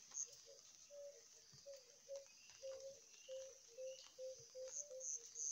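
Faint outdoor ambience of short, low animal calls repeating about twice a second, with high insect chirping near the start and again near the end.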